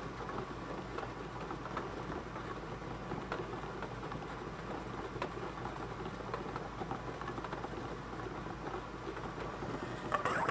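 Bingo ball blower machine running: a steady clatter of plastic balls tumbling in the air stream, with a louder rattle near the end as the next ball is drawn up into the tube.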